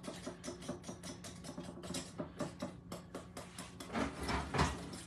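Metal spoon stirring honey mustard dressing in a mixing bowl, clicking and scraping against the bowl's sides in quick, rapid strokes, a little louder about four seconds in.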